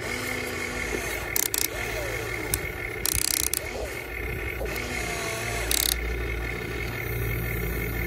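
Huina 1550 RC excavator's electric motors and gearboxes whining as the boom and bucket move, the whine sliding up and down in pitch, with three short hissing bursts.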